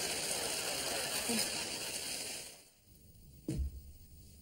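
Steady rain falling, an even hiss that stops about two and a half seconds in. Then a quiet room, broken once by a soft thump.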